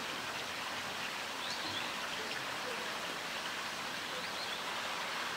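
Steady rush of water pouring from a spout into a pool, with a couple of faint high chirps about a second and a half and four seconds in.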